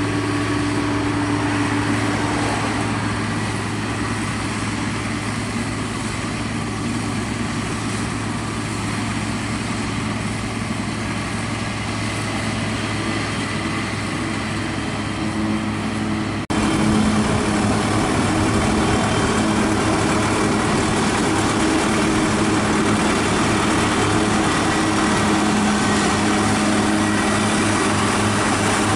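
Diesel engines of a maize forage harvester and its tractor running steadily under load. About halfway through the sound jumps to a louder, fuller engine note with the harvester chopping maize and blowing it into a trailer alongside.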